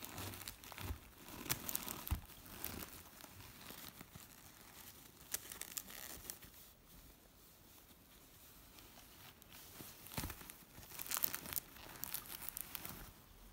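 Rustling of a fabric drawstring pouch being opened and a cellophane-wrapped perfume box crinkling as it is handled, in scattered bursts: busy at first, quieter in the middle, busy again near the end.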